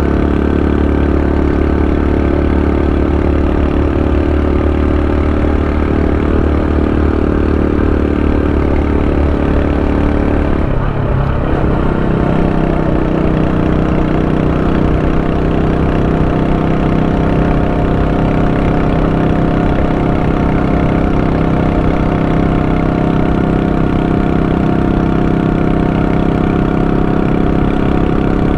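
Honda Super Cub 90's single-cylinder four-stroke engine running steadily, with a brief break in its note about eleven seconds in, after which it settles at a different pitch.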